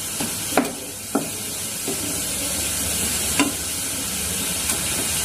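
Wooden spatula stirring and scraping a thick grated-coconut and sugar-syrup mixture around a non-stick frying pan, with a few sharp knocks of the spatula against the pan. The mixture sizzles steadily underneath as it is cooked down toward the point where it will set.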